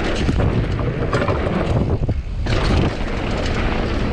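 Downhill mountain bike riding at speed: wind buffeting the microphone over the rumble of tyres on a dirt trail, with rapid clattering knocks from the bike's chain and frame over rough ground. A brief lull comes about two seconds in.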